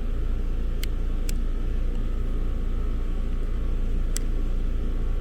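Trane XL20i outdoor condensing unit running, a steady low hum of the compressor and condenser fan, now starting and running on a new start capacitor relay instead of sitting in locked rotor. Three light clicks sound over the hum.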